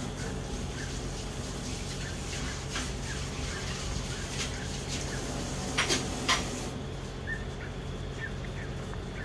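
Steady low background hum, with faint short chirps repeating about every half second and a few sharp clicks, the loudest two about six seconds in. No thunder is heard.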